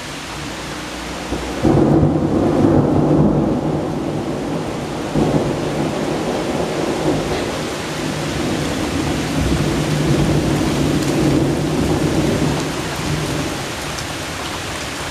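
Thunder rumbling over steady heavy rain: it breaks in suddenly about a second and a half in, swells again around five seconds, then rolls on low and fades near the end, leaving the rain.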